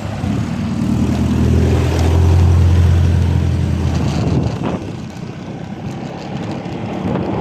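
A motor engine drones, swelling to its loudest about two and a half seconds in and fading away by about four and a half seconds, over a steady rush of wind and road noise.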